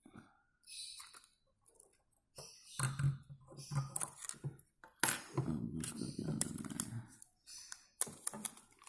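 Irregular small clicks, taps and scrapes of a metal machine head assembly and fine hand tools being handled on a workbench as its flex cables and tape are worked loose.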